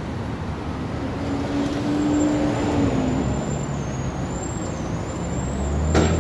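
Steady vehicle and traffic noise, with a brief hum about two seconds in and a short knock near the end.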